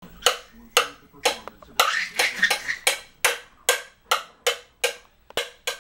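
A baby bangs a metal spoon on a bowl, striking about twice a second with a quicker flurry about two seconds in. Each hit rings briefly.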